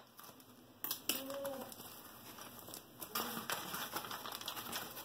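Plastic packaging and a foam wrap crinkling and rustling as they are cut open with scissors and unwrapped by hand, with a sharp click about a second in.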